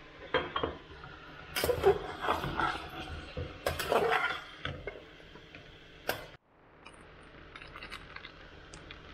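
A spatula scraping and knocking against a non-stick pot while chicken leg pieces are stirred, in several short clattering bursts. After a short break, a faint steady frying crackle continues from the pot on the gas flame.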